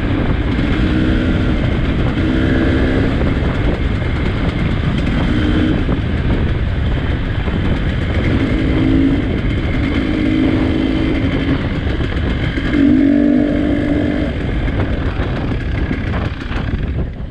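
Trail motorcycle engine running under throttle while riding a rough track, its note rising and falling in stretches over a steady rumble and wind noise. It eases off near the end.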